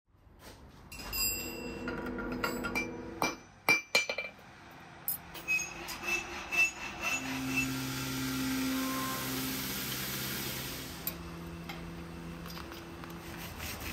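Small steel pieces clinking and tapping against metal, with several sharp ringing clicks in the first four seconds. Then a hand file scrapes along a thin steel rod, a steady rasping hiss.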